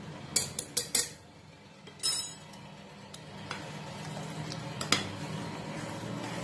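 A steel spoon clinks four times in quick succession against the rim of a stainless-steel pressure cooker, knocking off spice powder. A short clatter of metal on metal follows, then a steel ladle stirs thick curry, with one more knock against the pot.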